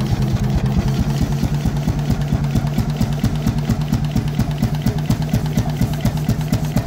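A 35 hp Målilla hot-bulb crude oil engine running steadily, with a fast, even rhythm of firing beats over a low hum.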